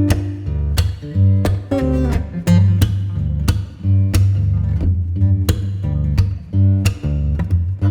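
Background music led by plucked and strummed guitar, with a strong bass line and a regular beat.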